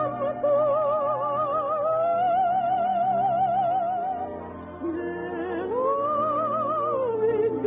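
A soprano singing an operetta song with orchestral accompaniment: long held notes with a wide vibrato, then a rising phrase about six seconds in. The sound is thin and narrow-band, as on an old broadcast recording.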